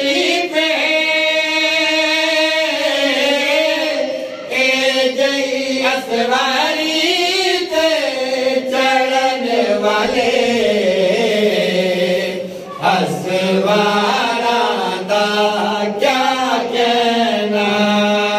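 A zakir's chanted devotional recitation: one man's voice singing into a microphone in long held notes that glide up and down, settling lower near the end.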